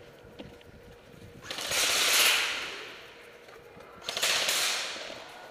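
Airsoft electric rifles (AEGs) firing two long full-auto bursts, a rapid rattle starting about a second and a half in and again about four seconds in, each tailing off.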